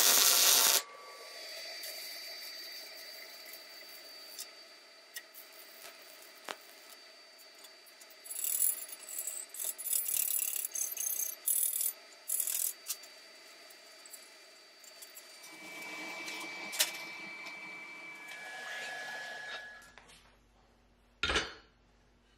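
A welding arc crackling for under a second, then a cut to intermittent scraping and rubbing on steel, with scratchy bursts in the middle. A single sharp metallic knock comes near the end.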